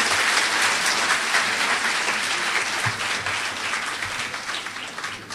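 Audience applauding, a dense patter of many hands clapping that gradually dies away over the last couple of seconds.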